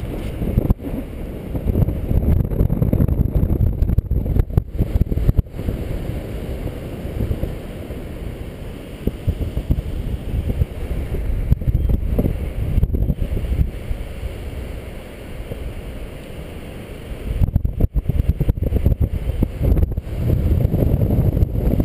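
Airflow buffeting the microphone of a harness-mounted camera during paraglider flight: a low, gusting wind noise that swells and eases, loudest in the first few seconds and again near the end.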